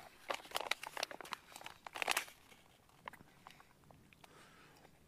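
Close-up crunching and crinkling as food is handled and eaten: dense bursts of crackly clicks in the first second and a half and again around two seconds in, then a few scattered clicks.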